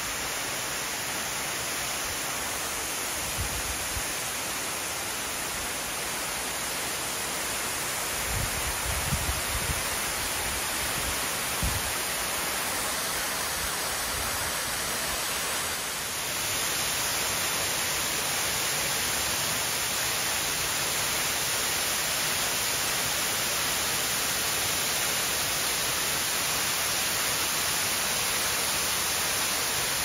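Waterfall splashing down a rock face into its pool: a steady, even rush that grows a little louder about halfway through. A few soft low thumps come about a third of the way in.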